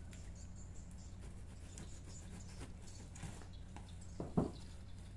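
A knife scratching through packing tape on a cardboard box and the box flaps being pulled open: faint scraping and rustling, with a couple of sharp taps about four seconds in, over a low steady hum.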